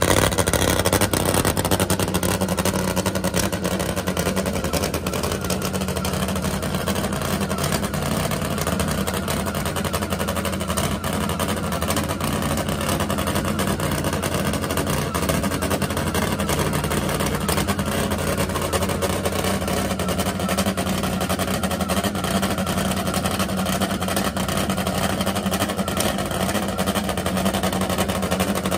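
Top Fuel nitro drag motorcycle engine idling steadily, a deep even note with no revving.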